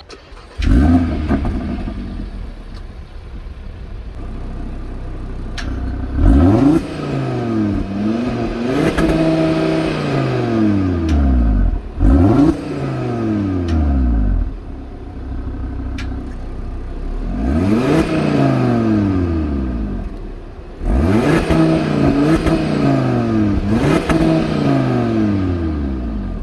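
Audi RS Q3's 2.5-litre turbocharged five-cylinder engine starting with a flare that settles to idle about half a second in, then being revved about six times while standing still, each rev rising quickly and falling back slowly to idle.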